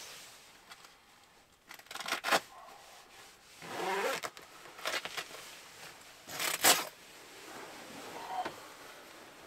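Rustling and scraping of a down sleeping bag's nylon shell in short bursts as a person stirs and sits up in it, the loudest burst a little past six seconds in.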